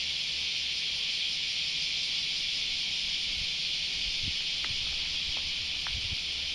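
Steady chorus of summer cicadas, a dense even hiss, with a few faint short chirps and low thumps in the second half.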